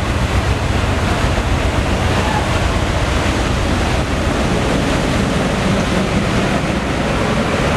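Steady rush of wind buffeting the microphone together with the wash of sea water, heard from the open deck of a moving ferry.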